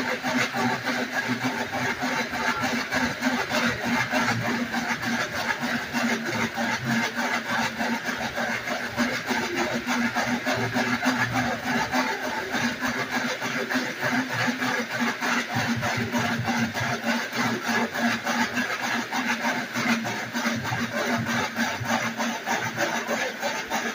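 Dog-powered slat mill spinning under a running dog, with a steady, fast clatter of slats and rollers that goes on without a break.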